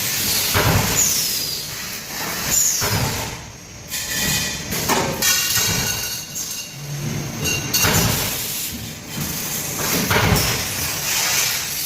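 Automatic-loading laser tube cutting machine at work: a series of irregular metallic clanks and knocks, with short high falling squeals about three times.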